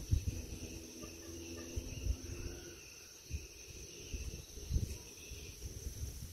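Insects chirring steadily in the surrounding trees, with irregular low thumps and rumbles on the microphone.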